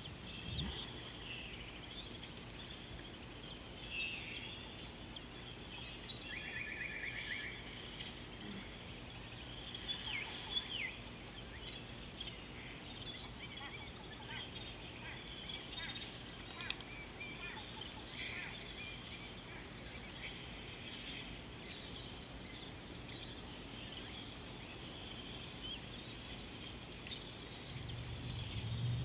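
Wild birds calling over outdoor ambience: many short chirps and whistles, a fast even trill about six seconds in, and a few quick falling notes around ten seconds. Near the end a low rumble sets in.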